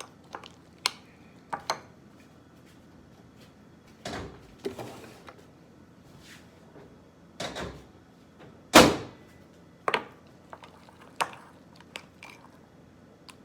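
Kitchen handling noises: scattered clicks and knocks, a couple of brief scrapes, and one loud thump about nine seconds in.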